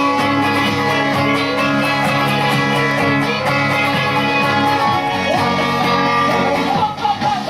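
Guitar music, plucked and strummed.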